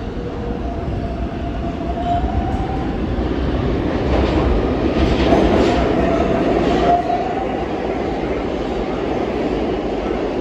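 R142-type New York City subway train running on the track: a steady rumble with a thin whine and a few wheel clacks over rail joints. It is loudest in the middle and drops about seven seconds in.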